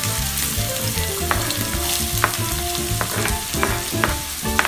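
Onions and garlic sautéing in hot olive oil, a steady sizzle with scattered clicks of a utensil stirring them in the pan.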